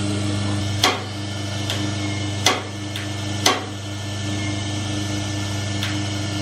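Garanti drum coffee roaster running while it preheats: a steady hum from its motors, broken by sharp clicks at irregular intervals, three of them loud.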